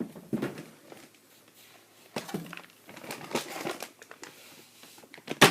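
Plastic packaging crinkling and rustling in short bursts as toy parts are handled, with one sharp clack near the end.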